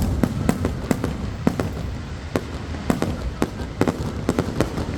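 Fireworks display: aerial shells bursting in a rapid, irregular string of sharp bangs and cracks, several a second, over a steady low rumble.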